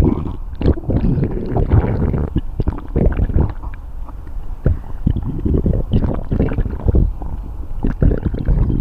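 Human stomach growling and gurgling: a continuous low rumble broken by many short pops.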